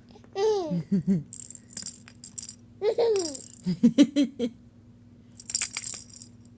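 A small child laughing at a fake sneeze: high, falling squeals and a run of quick giggles about four seconds in, with short noisy rattling bursts between the laughs.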